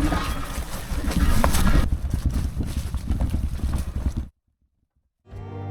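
Wind rumbling on the microphone and rattling and knocking from an e-bike riding over a rough trail. It cuts off suddenly about four seconds in, and acoustic guitar music starts just before the end.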